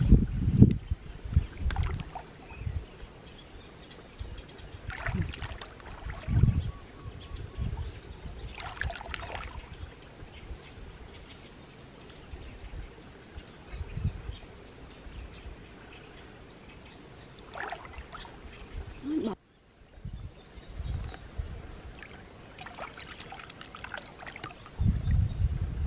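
Stream water sloshing and splashing as a person wades through it and gropes along the bottom with her hands, in irregular surges with a few sharper splashes.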